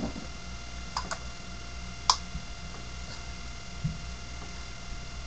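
A few light clicks and taps from paint pots and a brush being handled while mixing paint, the sharpest about two seconds in and a duller knock near the end, over a steady low electrical hum.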